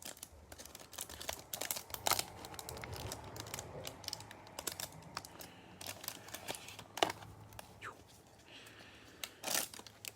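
Packaging from a trading-card hanger box being opened and handled: plastic wrapper and cardboard crinkling and tearing in irregular crackles, with a few louder sharp clicks about two, seven and nine seconds in.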